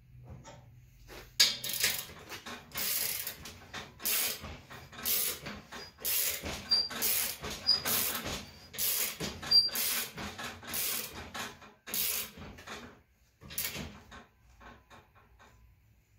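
Hand-cranked three-roll slip roller rolling a 16-gauge stainless steel sheet back and forth: a series of about a dozen short scraping strokes, roughly one a second, with a few faint squeaks in the middle, growing weaker near the end.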